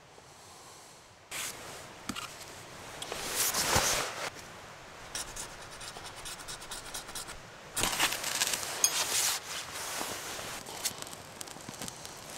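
Firewood and kindling being handled and set into a steel campfire ring: irregular rubbing and scraping of wood on wood and metal, with short knocks, loudest about four seconds in and again around eight seconds in.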